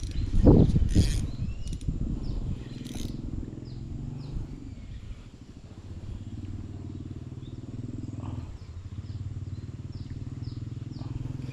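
A small engine running steadily somewhere near, a low even hum, with short high chirps of small birds over it. Loud knocks and handling noise come in the first second or so.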